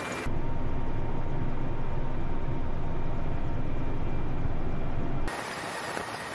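Military helicopter's engines and rotor heard from inside the cockpit as a steady, heavy low rumble. About five seconds in it cuts suddenly to a quieter, even hiss of engine and rushing air.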